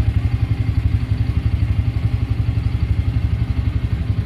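Single-cylinder motorcycle engine idling steadily, with an even, pulsing exhaust beat.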